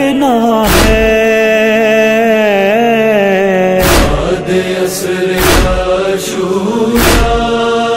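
A wordless vocal chorus holds a sustained, slowly wavering chant between the verses of a noha. About six sharp chest-beating (matam) strikes fall at irregular intervals, most of them in the second half.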